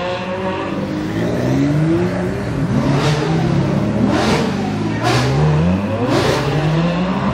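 Car engines revving and accelerating one after another, each pitch sweeping upward, with several short rasps of exhaust noise on top.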